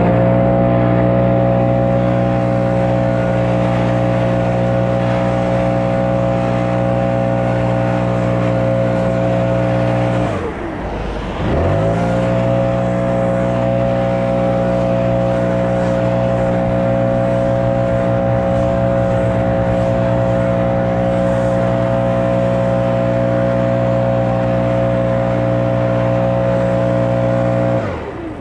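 Small gasoline engine of lawn-care power equipment running at a steady high throttle. Its pitch drops sharply about ten seconds in and climbs back a second later, then falls off again at the very end.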